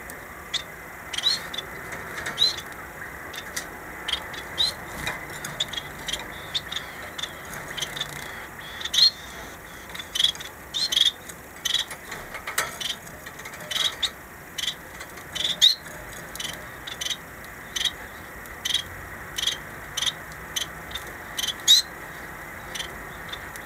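Caged society finches (Bengalese finches) making short, high chirping calls, many of them at uneven intervals, one calling over another.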